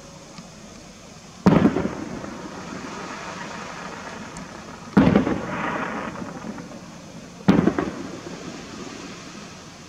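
Three aerial firework shells bursting, each a sharp bang followed by a rolling echo that dies away over a second or two: the first about a second and a half in, the second about five seconds in, the third about seven and a half seconds in.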